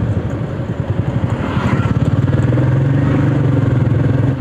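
Royal Enfield motorcycle engine running under way with a steady, pulsing low beat, with road and wind hiss above it.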